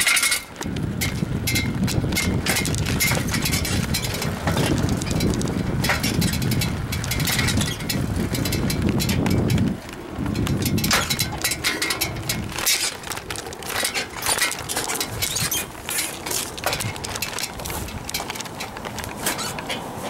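Bicycle being ridden over pavement, a steady rumble of wind and tyre noise with many small rattles and clicks. The rumble drops about ten seconds in and eases after that.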